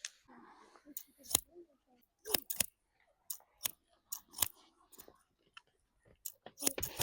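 Barber's scissors snipping hair: a dozen or so sharp snips at an uneven pace, some coming in quick pairs.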